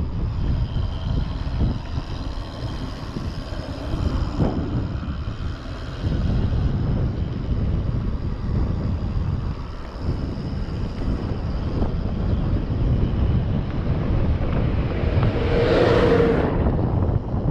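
Wind buffeting the microphone with a steady low rumble as a mountain bike rolls down a paved road. About sixteen seconds in a school bus passes close alongside, briefly the loudest sound, with a short tone over the rumble.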